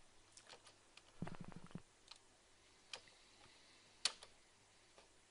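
Faint clicking of a computer keyboard: a quick run of keystrokes a little after a second in, then a few single clicks, the sharpest about four seconds in.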